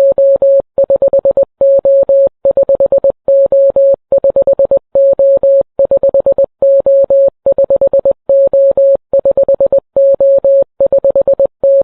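SOS in Morse code: a single mid-pitched electronic beep tone keyed on and off in a repeating pattern of three short beeps, three long beeps, three short beeps, sent over and over without a break.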